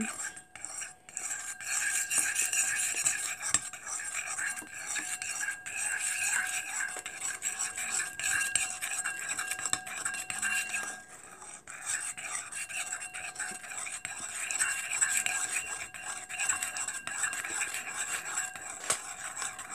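A spoon stirring clear glue and glitter in a bowl, scraping and clinking steadily against the bowl, with a brief lull about eleven seconds in.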